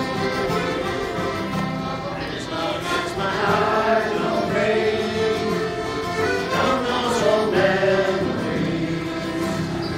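Button accordion and acoustic guitar playing a lively Newfoundland folk song, with voices singing along.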